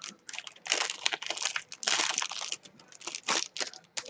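Plastic wrapping on a stack of game cards crinkling and tearing as it is pulled open by hand, in irregular bursts of crackle that are densest about one and two seconds in.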